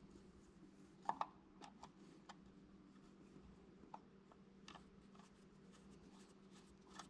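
Faint small metallic clicks and scrapes of a screwdriver turning the breaker-point hold-down screw inside an Oliver 880's distributor, the loudest clicks about a second in, over a faint steady hum.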